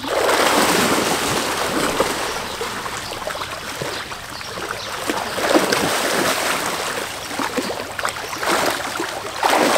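A white tiger wading and splashing through a shallow pond, the water sloshing and splattering around its legs with many short splashes.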